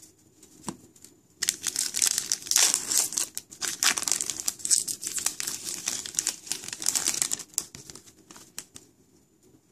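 Foil wrapper of an Upper Deck MVP hockey card pack being torn open and crinkled, for about six seconds starting a second and a half in. It thins to a few light clicks and rustles near the end as the cards are handled.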